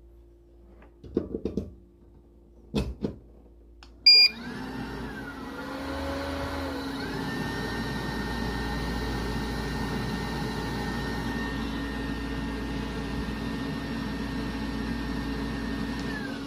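Aillio Bullet R1 V2 coffee roaster: two brief knocks, then a short beep about four seconds in, after which its fans spin up with rising whines and run steadily with a hum and a high whine. The title calls this an IBTS fan buzz noise, a buzz from the roaster's infrared bean-temperature-sensor fan.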